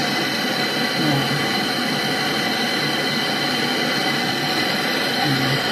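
MAPP gas hand torch burning with a steady hissing roar as its flame heats a copper tube joint to red for brazing.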